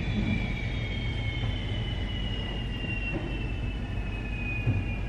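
Aircraft turbine whine, several high tones slowly falling in pitch, over a steady low rumble.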